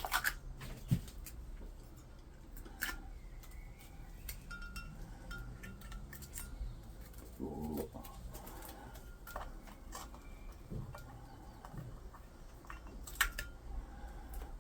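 Faint, scattered clicks and taps of small parts and tools being handled on a workbench, with a few short high chirps between them.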